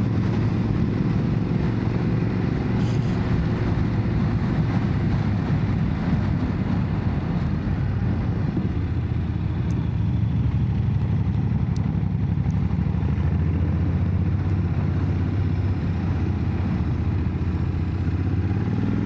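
Motorcycle engine running steadily on the move, heard from on board, over a continuous rushing noise.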